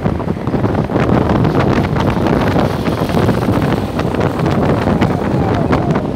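Strong wind buffeting a phone's microphone held out of the roof of a moving car, a loud, gusty rumble.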